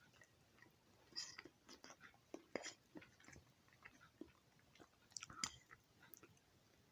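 Faint, irregular clicks and soft rustles of kitchen handling while food is prepared, with a small cluster of clicks just past five seconds in.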